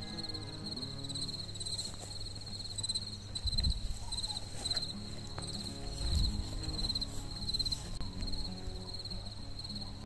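Crickets chirping in a steady pulsing trill over soft background music, with two low thumps about three and a half and six seconds in.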